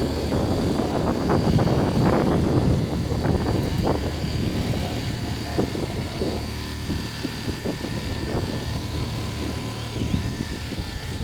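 The mobile crane's engine runs steadily under load while it lifts a steel beam, with a steady high whine above it and scattered knocks and rustles, loudest in the first few seconds.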